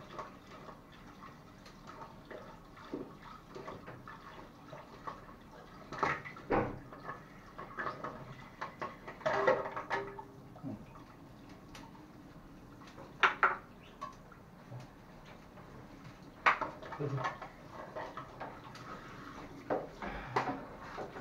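Water sloshing and dripping in a drain while it is scooped out, with about six scattered clanks and knocks a few seconds apart.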